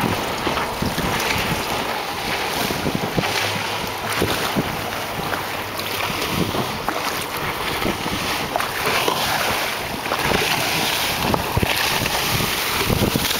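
Wind buffeting the microphone over choppy water splashing in uneven surges, with a boat's engine running under the noise.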